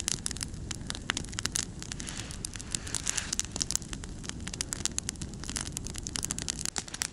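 Freshly lit wood campfire catching and burning up, crackling with many quick sharp pops and snaps over a steady hiss.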